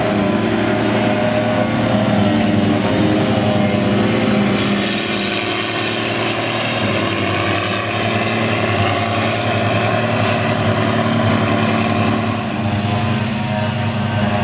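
Diesel engine of a Valtra tractor running steadily as it pulls a silage trailer past. About twelve seconds in, the sound changes to a forage harvester and tractor engines working in the field.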